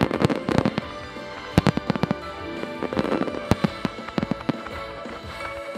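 Aerial firework shells bursting in quick volleys of sharp bangs, several clusters a second or so apart, over music. The bangs stop about four and a half seconds in.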